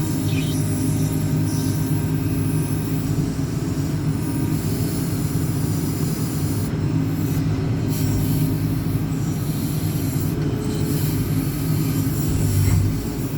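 JCB 4CX backhoe loader's diesel engine running steadily at working revs while the rear backhoe arm is worked. There is a brief surge in engine note about a second before the end.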